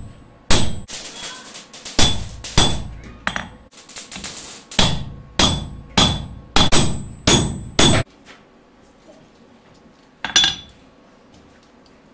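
Hand hammer forging a red-hot falchion blade on an anvil: about a dozen ringing blows, roughly two a second, which stop about eight seconds in, then one more clang a couple of seconds later.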